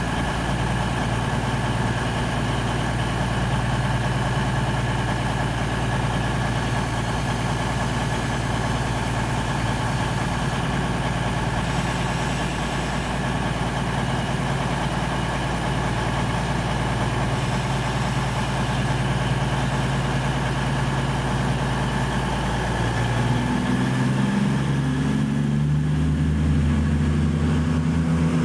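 CrossCountry Voyager diesel multiple unit's underfloor diesel engines running steadily at a station platform. About 24 seconds in, the engine note changes and grows slightly louder as the train begins to move off.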